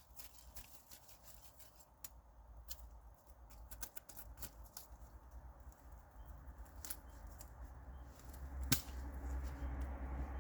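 Campfire crackling, with irregular sharp pops and one loud snap near the end, over a low rumble that grows in the last couple of seconds.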